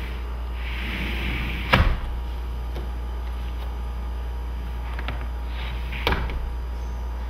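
A sliding-door flip lock's clear plastic arm being flipped and knocking against the door frame: two sharp plastic clicks about four seconds apart, with a few fainter ticks between, over a steady low hum.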